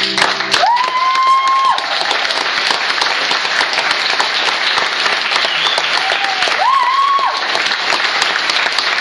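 Audience applauding steadily, with a high held cheer about a second in and another, preceded by a shorter one, about six to seven seconds in.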